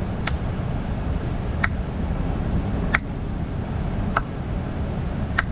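A sharp tick about every 1.2 seconds, five in all, over a steady low rumble.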